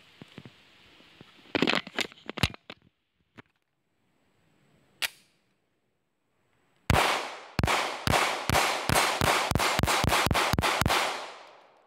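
Taurus PT111 Millennium G2 9mm pistol firing a rapid string of about a dozen shots, each with a short ringing tail, the shots coming faster toward the end. A few sharp clacks come earlier, and a lone click about midway.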